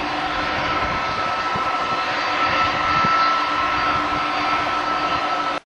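Airbus A320-216 airliner's twin CFM56 turbofan engines climbing away after takeoff: a steady jet roar with a thin, steady fan whine in it. The sound cuts off suddenly near the end.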